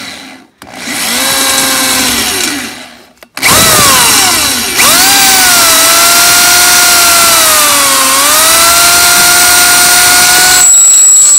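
Electric drill with a small bit drilling a pilot hole through an old hubcap-clip rivet on a steel wheel. It runs for about two seconds, stops, then runs again for about seven seconds, its whine dipping in pitch as the bit bites and recovering.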